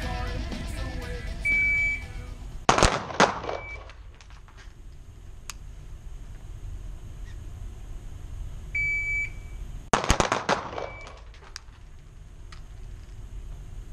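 A short electronic start beep, then two or three quick .22 LR pistol shots from a CZ P07 Kadet. About seven seconds later a second beep sets off a faster string of four or five shots, each ringing briefly off the range walls.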